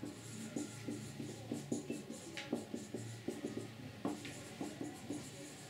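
Marker pen squeaking and rubbing across a whiteboard in short, irregular strokes as words are written, with two light clicks about two and a half and four seconds in.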